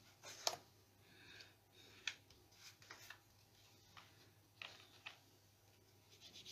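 Near silence, broken by a few faint, separate taps and soft rubs of a small foam ink blending tool dabbing ink onto card stock.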